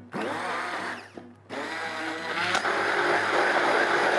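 Handheld immersion blender running in a small stainless-steel saucepan of mango curd, emulsifying the butter into it. There is a brief gap about a second in, then it starts again and runs steadily.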